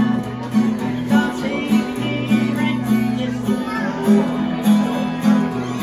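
Acoustic guitar strummed in a steady rhythm, with the low bass note changing every second or two.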